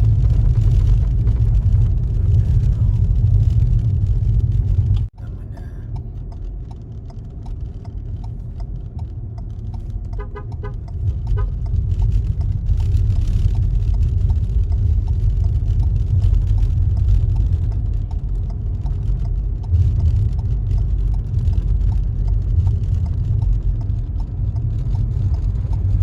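A car driving, a steady low road rumble. There is a brief dropout about five seconds in and a short run of quick beeps around ten seconds in.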